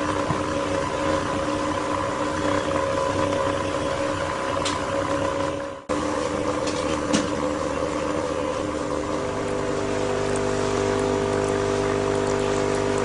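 Ozone water-cleaner machine running: its air pump hums steadily while ozonated air bubbles through an air stone in a bowl of water. The sound breaks off for an instant about six seconds in, then carries on with a deeper hum from about two-thirds of the way through.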